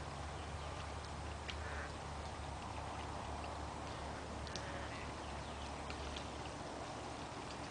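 Steady outdoor hiss with a low hum underneath, and a few faint short chirps or ticks scattered through it.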